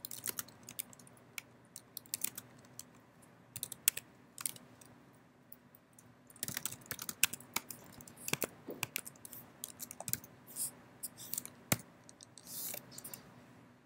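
Typing on a computer keyboard: irregular flurries of keystrokes with short pauses between them.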